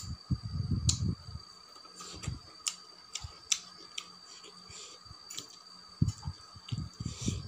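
Close-miked eating by hand: wet clicks and smacks of chewing and of fingers mixing rice with chutney on a leaf plate. Soft low thumps come in clusters in the first second and again near the end.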